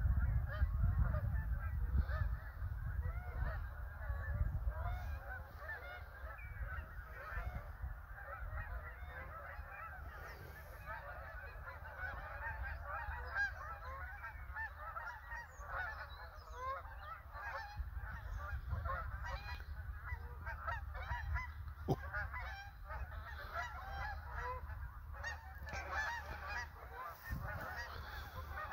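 Hundreds of Canada geese honking: a dense, continuous chorus of overlapping calls, with a low rumble in the first few seconds.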